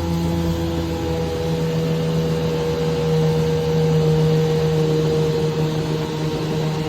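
1970 Chrysler 10 hp two-stroke outboard motor running at a steady speed with an even hum.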